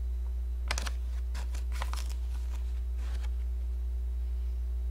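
Spoon scooping granulated xylose sugar from its bag: a few short scraping, rustling strokes from about a second in to about three seconds in, over a steady low electrical hum.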